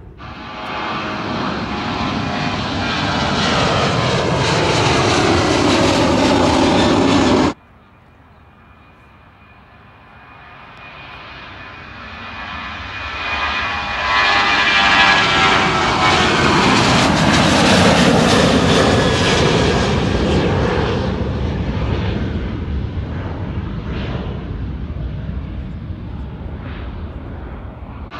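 A passing jet's engine noise cuts off abruptly about seven seconds in. A Jet2 Boeing 737-800's CFM56 turbofans at takeoff power then swell up, loudest midway with a high whine that glides slightly down, and fade as the airliner climbs away.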